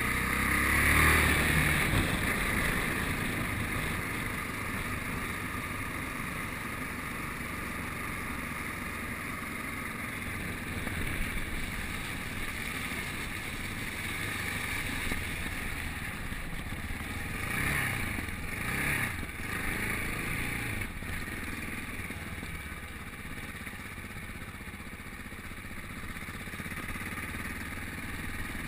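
Yamaha Ténéré motorcycle's single-cylinder engine running steadily under way, with wind rushing over the handlebar-mounted microphone. Revs rise and fall twice about two-thirds of the way through.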